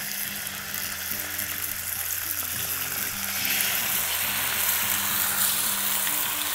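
Beaten eggs sizzling on a hot plancha griddle as they are poured on slowly and stirred with a silicone spatula; the sizzle grows louder a little past halfway as more egg spreads over the hot steel.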